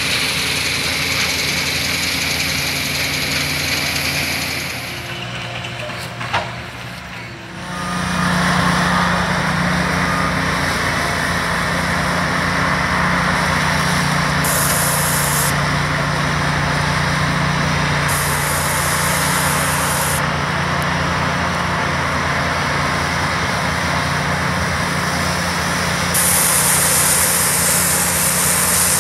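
New Holland CX8.85 combine harvester running under load as it threshes barley: a steady engine and machinery drone. About five seconds in it drops quieter for a couple of seconds with a single click, then comes back at full level.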